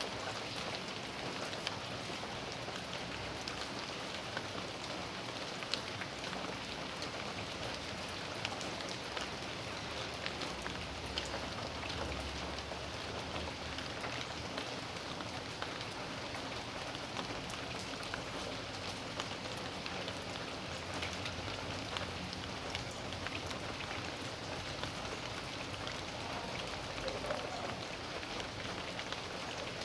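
Steady rain falling on a backyard, a continuous hiss with many scattered drops tapping on surfaces.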